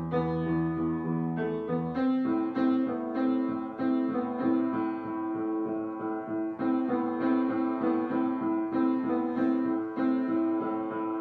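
Background instrumental music: a keyboard-like melody of quick, even notes, with a low held drone beneath it that stops about two seconds in.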